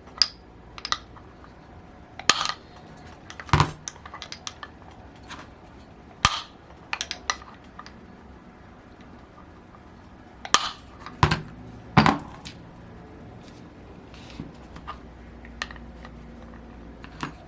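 Metal tools and model-engine parts clinking and knocking on a workbench while the engine is being taken apart, a scattering of separate sharp clicks, with the loudest few knocks coming together about two-thirds of the way in.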